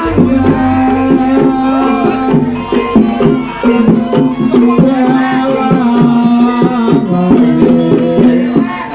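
Javanese gamelan-style accompaniment music: hand-drum strokes in a quick, steady rhythm under held pitched tones, with a melody line gliding above.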